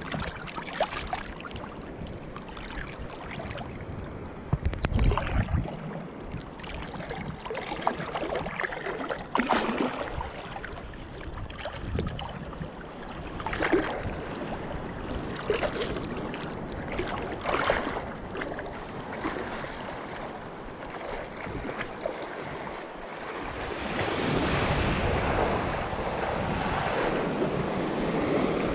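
Sea waves washing and splashing around a person wading in the surf, with wind on the microphone. The surf grows louder in the last few seconds as breaking waves wash past.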